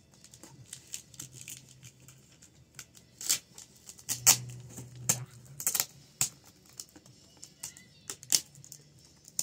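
Cardboard and a roll of tape being handled: scattered clicks and taps, with a few short rasping rips of tape, the loudest about three, four and six seconds in.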